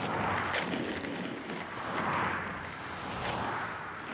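Road traffic ambience: a steady rushing noise that swells and fades in slow waves, like cars going past.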